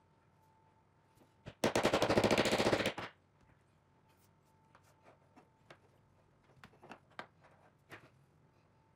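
A loud, rapid rattle of clicks for about a second and a half, then a few light separate knocks as small square steel tubes and plywood squares are set down on a tabletop.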